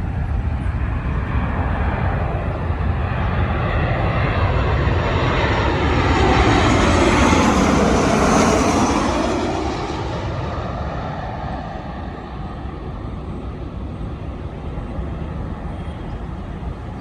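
Jet airliner flying low overhead on landing approach: engine noise swells to its loudest about halfway through, with the engine whine sliding down in pitch as it passes, then fades away.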